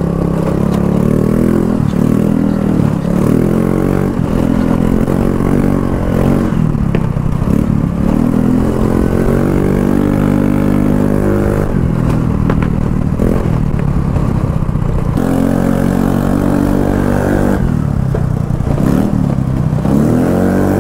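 A Yamaha Fascino scooter's single-cylinder engine running through an aftermarket Akrapovic exhaust with the dB killer removed, on the move. The engine note climbs and falls back several times as the throttle is opened and closed.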